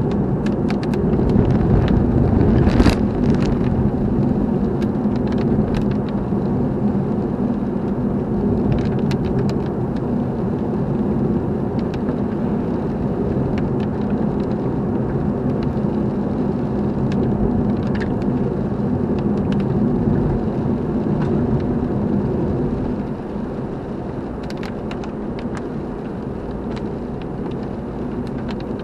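A car driving, with steady engine and road rumble. Scattered faint clicks run through it, and the noise gets a little quieter about three-quarters of the way through.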